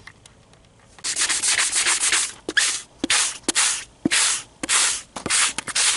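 A red abrasive scuff pad rubbed back and forth by hand over a plastic side-mirror housing, scuffing the surface to prepare it for paint. The rubbing starts about a second in, in quick strokes about two a second.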